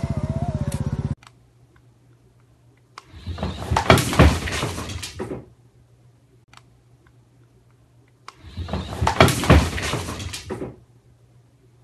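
A small engine's pulsing drone cuts off about a second in. This is followed by two bursts of clattering, knocking and scrabbling as a cat lunges at its reflection in a glass panel on a hard floor.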